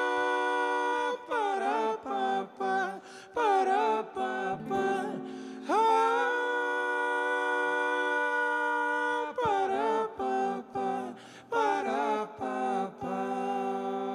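Men's voices singing a wordless vocal outro to an acoustic song, long held notes broken by short quick syllable phrases, with acoustic guitars.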